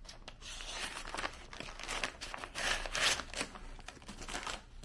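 Brown paper shipping bag being cut open with scissors, the paper rustling and crinkling, loudest about three seconds in.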